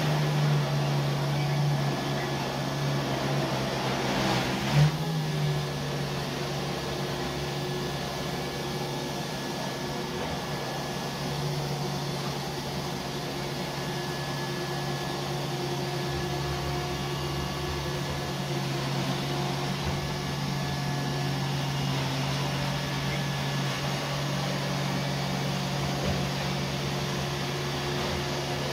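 Robot vacuum cleaners running: a steady motor and fan hum with brush whir, plus a brief knock about five seconds in.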